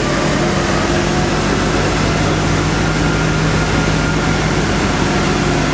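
Tour bus driving along with its engine running, a steady low hum with no change in level.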